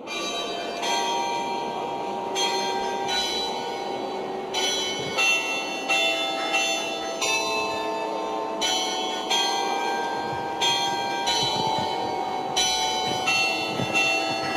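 Church bells ringing, struck one after another at an uneven pace of about one to two strikes a second, each tone ringing on and overlapping the next.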